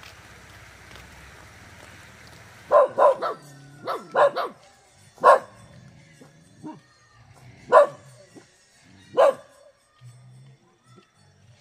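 Dog barking: a quick run of about six barks, then single barks spaced about two seconds apart.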